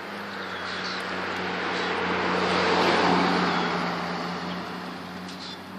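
A car passing by on the road: tyre and road noise swells to a peak about halfway through, then fades. A steady low hum runs underneath.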